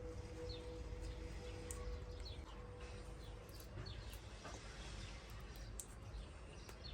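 Small birds chirping faintly, short quick chirps now and then, over a low steady rumble.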